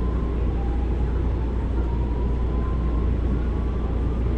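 Electric commuter train heard from inside the carriage as it moves off: a steady low rumble of the running gear, with a faint motor whine slowly rising in pitch as the train picks up speed.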